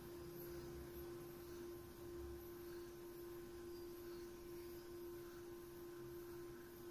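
Faint steady hum at one unchanging mid pitch, with a low background hiss.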